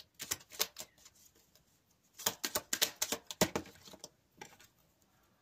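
A deck of oracle cards being handled and shuffled: quick, light card clicks and taps in two runs, the second and busier one starting about two seconds in.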